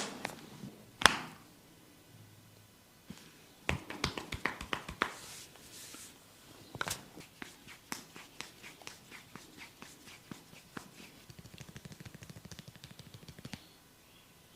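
A barber's hands snapping and tapping during a head massage: a loud snap about a second in, clusters of quick sharp snaps, and a fast, even run of light taps near the end.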